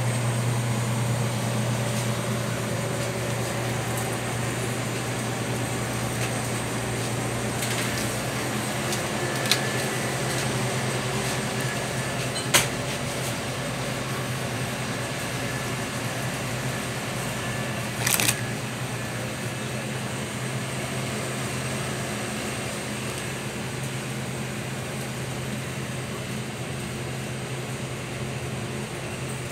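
Steady low hum and hiss of cooling machinery, refrigerated display coolers and air handling, with the low drone easing off after about ten seconds. A few short sharp clicks break through, the sharpest about thirteen seconds in and another near eighteen seconds.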